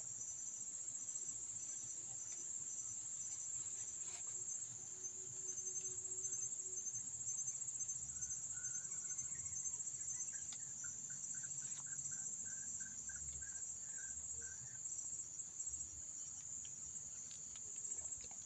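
Steady high-pitched drone of insects. Midway through, a bird calls a string of short, evenly spaced notes, about two a second, for several seconds.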